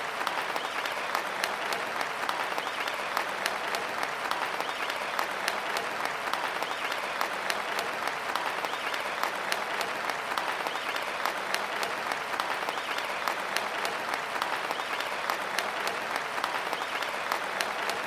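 A large crowd applauding steadily, many hands clapping at once in a dense, even patter.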